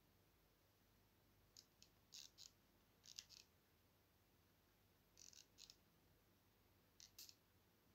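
Faint, sharp clicks in small clusters of two or three, coming irregularly every second or two over a quiet room background.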